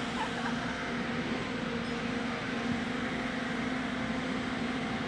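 A steady mechanical hum over an even rushing noise, the level holding constant with no separate events.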